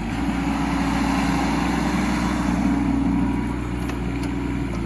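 Mini excavator's diesel engine running under hydraulic load as the upper body swings round on its stationary tracks; it runs louder for about three seconds, then eases back.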